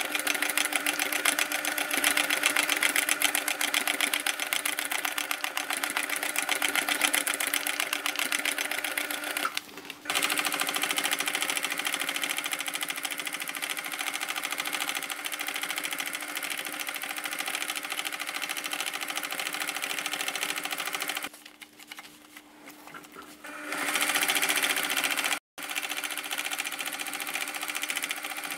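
Sewing machine running fast in long continuous runs, stitching glitter vinyl onto denim through a rubber foam stabilizer with the feed dogs lowered for free-motion sewing. It stops briefly about ten seconds in and again for a couple of seconds a little past the twenty-second mark, then resumes.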